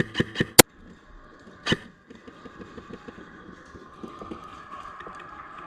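Airsoft gun firing a rapid string of shots, about eight a second, that stops with a louder crack about half a second in, followed by one more single shot near 1.7 seconds.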